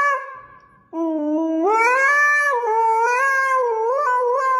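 Husky howling into a handheld karaoke microphone. One howl fades out just after the start. A new one begins about a second in, low, rises in pitch, then wavers up and down.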